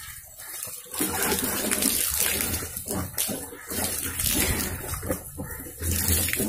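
Water sloshing inside a Royal Enfield steel fuel tank and pouring out of its filler opening onto the ground as the tank is tipped, rinsing out rust. The rush of water starts louder about a second in and surges unevenly.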